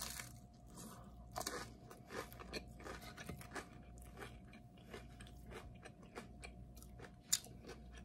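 Crunching and chewing of a mouthful of crisp flatbread: a louder crunch about a second and a half in, then a run of small crisp chews, several a second.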